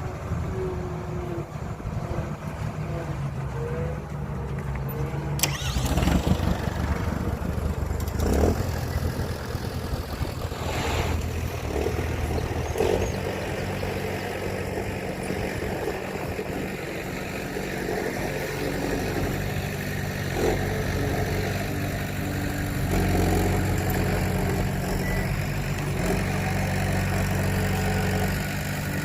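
Heavy truck diesel engine running and idling, with several sharp knocks or clanks over it. The engine gets a little louder and steadier about three-quarters of the way through.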